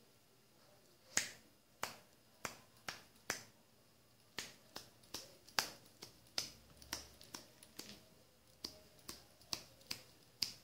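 A run of sharp, snapping clicks, irregularly spaced at roughly two a second, starting about a second in and going on to the end.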